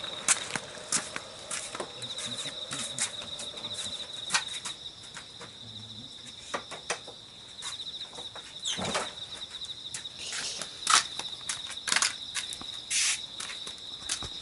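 Insects trilling steadily in a high, pulsing tone, with irregular sharp knocks and taps scattered through, the loudest near the end.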